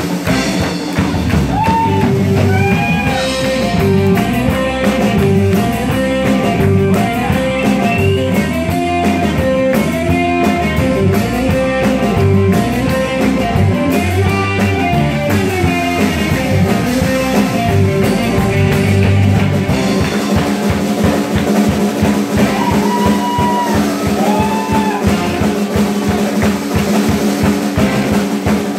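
Live rock and roll band playing: a drum kit keeps a fast, driving beat under electric guitar and saxophone, with a melody over a bass line. About twenty seconds in the melody mostly drops out and the drums carry on alone, with short melodic phrases returning briefly.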